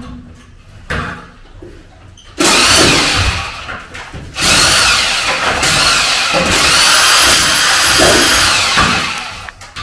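Electric rotary hammer (perforator) running in two loud bursts, one of about a second and a half and then one of about four and a half seconds, its motor whine dropping away as it stops near the end.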